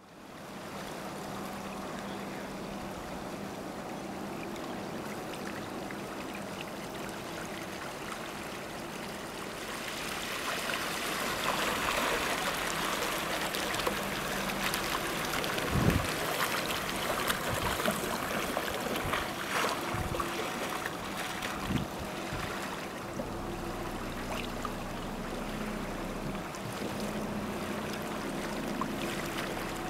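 Steady wash and trickle of water around a small sailboat's hull as it motors under electric drive. It gets louder about ten seconds in, with a few short low thumps.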